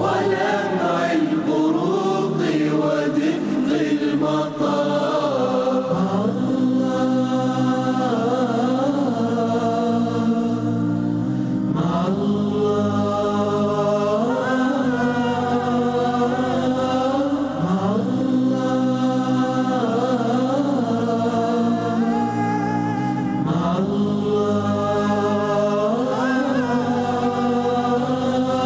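Voices singing an Arabic nasheed melody in layered harmony, in the manner of a chant, with a gliding phrase that repeats about every six seconds.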